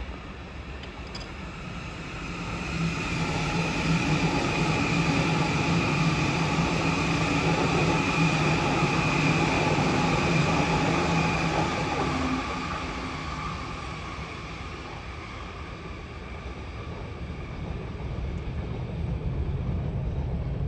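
Double-deck electric suburban train passing close: wheels running on the rails under a steady hum with a few held tones, swelling to its loudest midway and then easing off. Near the end a second train is heard approaching.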